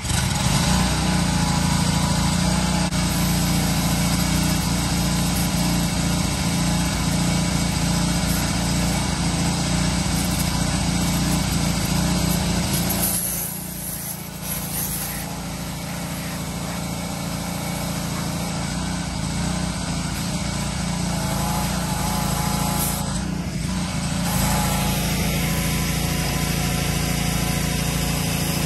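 Pressure washer running steadily. Its sound dips briefly twice, about halfway through and again a few seconds before the end.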